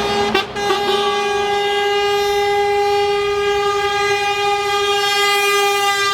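Truck air horn held in one long, steady blast, with a short break about half a second in.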